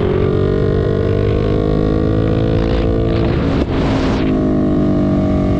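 Yamaha YZF-R3's parallel-twin engine running steadily at cruising speed, its pitch creeping slowly upward. A short rush of hiss comes a little past halfway.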